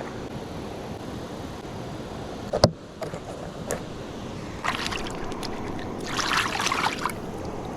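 Small boat on the water: a steady wash of water and wind noise, a sharp knock a little over two and a half seconds in, and two short bursts of hissing noise near the end.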